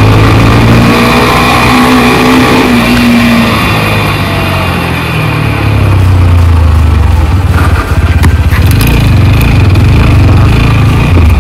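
TVS Apache RTR 160 4V's single-cylinder engine revving and pulling hard in the low gears, its pitch rising and falling. The revs drop briefly about eight seconds in.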